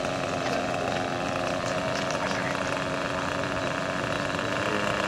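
Engine of a Hirobo JetRanger radio-controlled model helicopter running steadily while the helicopter sits on the ground with its main rotor turning slowly.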